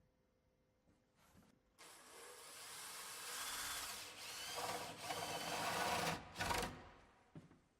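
Power drill boring the spindle hole through the face of a timber door. It starts about two seconds in and runs for about four seconds, then gives one short further burst before stopping.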